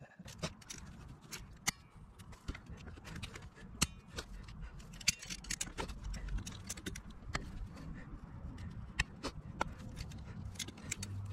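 Metal hand tools clicking and scraping in irregular, sharp ticks, with a low steady rumble underneath.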